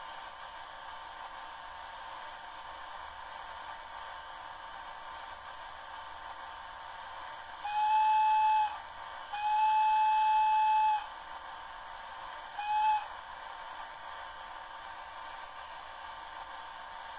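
Horn of a sound-equipped model D443 diesel locomotive, played through its small onboard speaker: three blasts on one pitch, short, long, short, over a steady hum.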